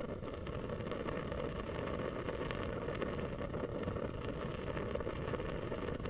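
Mist humidifier bubbling steadily, a dense run of tiny pops and gurgles in its water.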